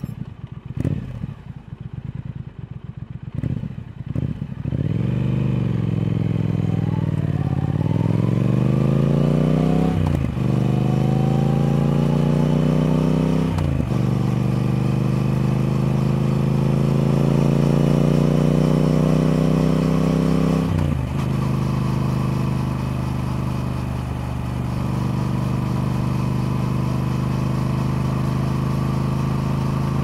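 Triumph Speed Twin's parallel-twin engine accelerating through the gears. It pulses unevenly at low revs for the first few seconds, then the note climbs, with three upshifts about 10, 13 and 21 seconds in, each a brief break and drop in pitch. It then settles into a steady cruise.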